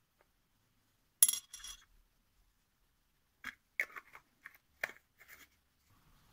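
A thin metal stirring stick clicking and scraping against a small jar of silver acrylic paint and a cup of black-tinted epoxy resin: one sharp click about a second in, then a run of light taps and scrapes in the middle.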